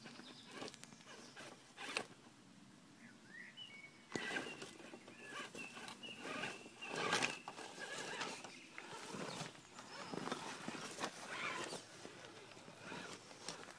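Axial Wraith RC rock crawler climbing over boulders: the thin whine of its electric motor and gears comes and goes under scattered knocks and scrapes of the tyres and chassis on stone.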